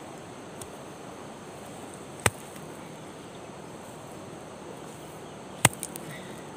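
Steady rush of a fast-flowing river with a high, even insect drone over it. A few sharp knocks cut through it, two loud ones about two seconds in and about five and a half seconds in, with fainter ones near the start and just after the second loud one.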